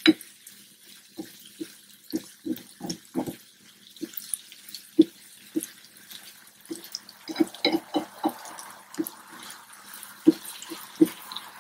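Wooden spatula stirring a pan of cooked green beans and tomato, knocking and scraping irregularly against a nonstick frying pan, with a light sizzle from the oily mixture over medium heat.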